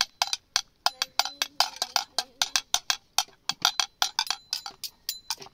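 Metal spoon clinking and scraping against a large cooking pot as rice is stirred: a quick run of sharp taps, several a second.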